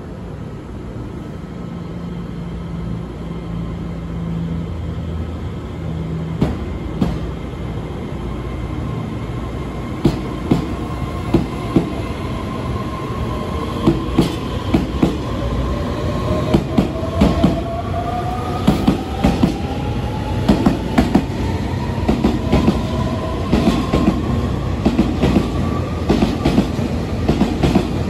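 Taiwan Railway EMU3000 electric multiple unit pulling out and accelerating past. Its traction motors give a whine that rises steadily in pitch from about halfway through. Its wheels click over the rail joints, the clicks coming faster and faster.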